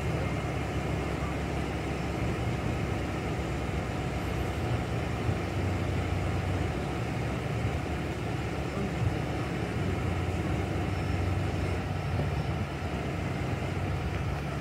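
A vehicle engine idling: a steady low hum with faint traffic and street noise.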